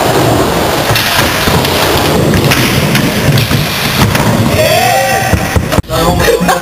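Skateboard rolling through a bowl: a loud, continuous rumbling noise from the wheels on the ramp that overloads the camera microphone. It breaks off abruptly about six seconds in.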